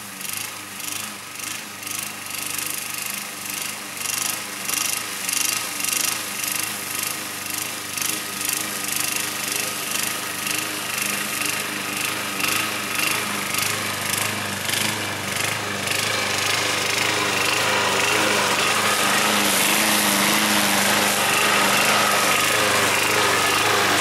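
Alpina BL 510 petrol walk-behind lawn mower running while cutting dry, tall grass. Its sound swells and fades about once a second at first, then grows louder and steady as the mower comes close.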